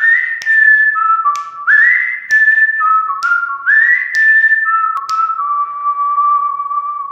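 Whistled intro jingle: a three-note falling phrase repeated three times, each time sliding up into the high note, with sharp clicks roughly once a second. It ends on a long held low note that fades out.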